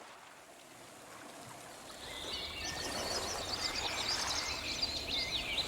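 Outdoor ambience fading in: a steady noise haze with rapid, high chirping calls of birds starting about two seconds in.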